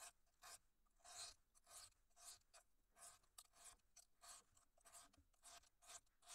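High-carbon steel knife blade drawn in quick repeated strokes across a dry bench sharpening stone, about two to three faint scrapes a second.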